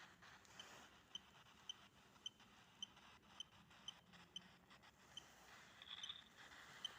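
Near silence with a faint, high-pitched chirp or tick repeating evenly just under twice a second.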